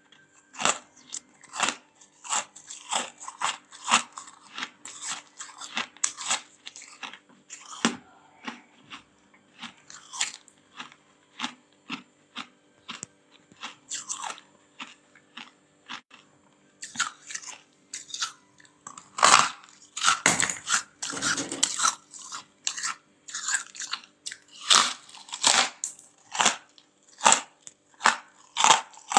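Freezer frost being bitten and chewed: a run of crisp, close-up crunches, roughly two a second, with a louder, longer crunching stretch about two-thirds of the way through.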